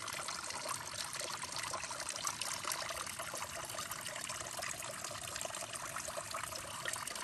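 Water trickling steadily, a continuous fine splashing and bubbling.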